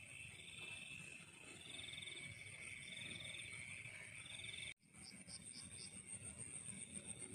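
Frogs and insects calling together in a steady night chorus of high trills. The sound cuts out abruptly about two-thirds of the way through and resumes, followed by four short high chirps.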